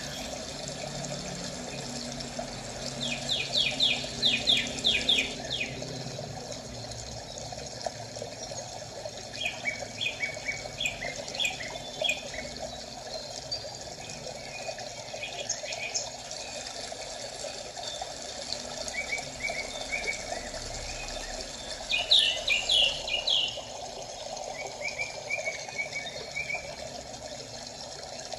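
Small birds chirping in several bursts of quick, high trills over a steady rush of running water.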